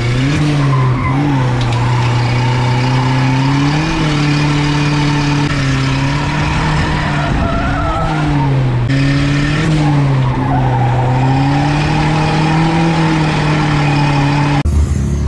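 Turbocharged Nissan D21 Hardbody mini truck's engine held at high revs while drifting, engine speed rising and falling with the throttle over the noise of skidding tyres. The sound cuts off abruptly near the end.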